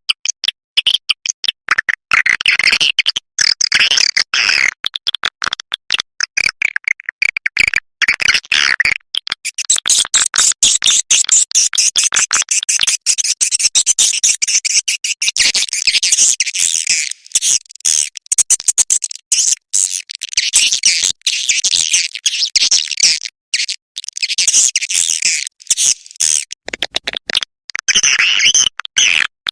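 Swiftlet call sound used to lure swiftlets to a nesting house: a dense, fast, high-pitched twittering and chirping that breaks off and resumes many times a second.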